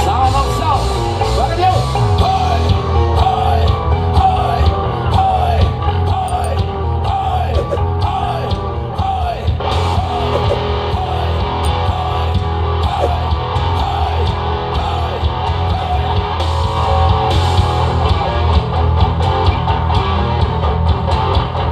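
Live heavy rock music: distorted electric guitars over a drum kit, loud throughout, with a melody line that bends up and down in pitch through the first half.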